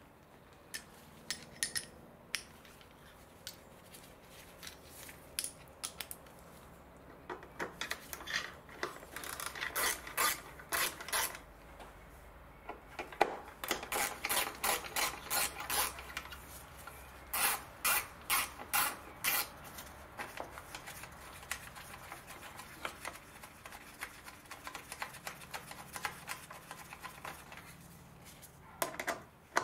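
Hand ratchet with an extension loosening bolts on a car's front frame, clicking in quick, even strokes. A few scattered clicks come first, then runs of rapid clicks lasting a second or two each, starting about a third of the way in and again near the end.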